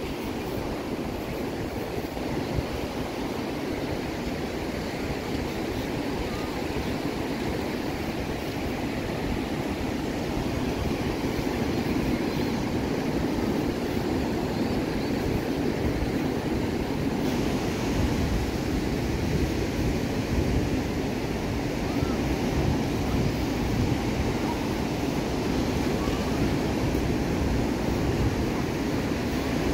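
Ocean surf breaking and washing up a sandy beach, a steady rush of noise, with wind.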